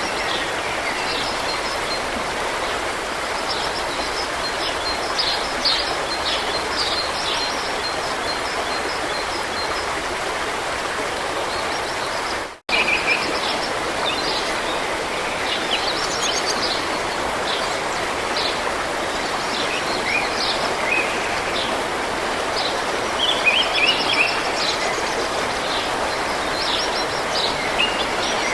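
Forest stream running steadily, with small songbirds chirping and singing over the water throughout. The sound cuts out for an instant about halfway through.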